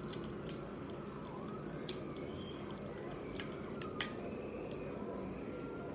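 Snow crab shell being picked and eaten by hand: a few sharp clicks and cracks of shell, four in all, over a steady low background hum.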